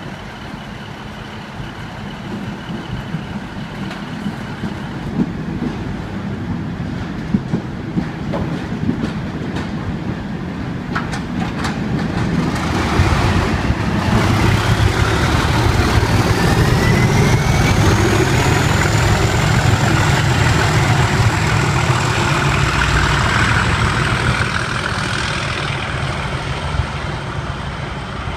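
Class 37 diesel locomotive's English Electric V12 engine working hard (thrash) as it passes. The engine sound builds about halfway through and stays loud, with a turbocharger whine rising in pitch and then holding high.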